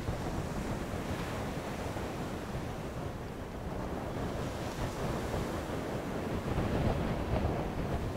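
Wind buffeting the microphone, a steady rushing noise that grows a little louder near the end.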